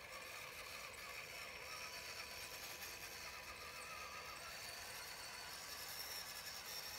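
Faint whine of an RC4WD Trail Finder 2 scale crawler's electric motor and gears as it drives through shallow water, steady with slight changes in pitch.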